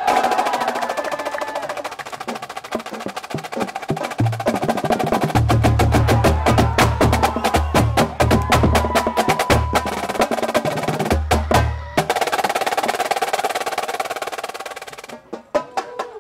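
Marching drum line of snare drums, multi-tenor drums and bass drums playing a fast, tightly rhythmic passage of rapid stick strokes, with the bass drums entering in short groups of hits. The playing stops about 15 seconds in.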